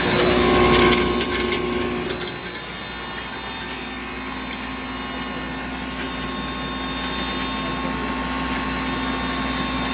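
Singhara (water chestnut) flour grinding machine running with a steady mechanical hum. There is a brief clatter of sharp clicks in the first two seconds, after which the running sound drops a little and stays even.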